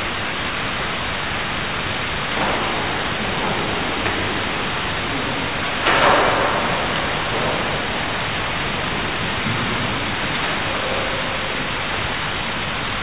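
Steady, loud hiss of background noise, with a brief louder rustle or knock about six seconds in.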